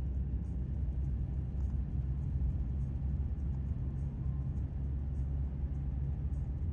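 Steady low rumble of a moving vehicle, road and engine noise heard from inside the cabin.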